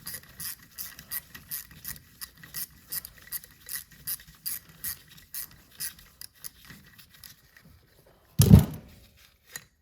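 Ratchet wrench clicking steadily, about three clicks a second, as it works the bolts of a 7.3 Powerstroke turbocharger housing, then one loud, heavy knock near the end.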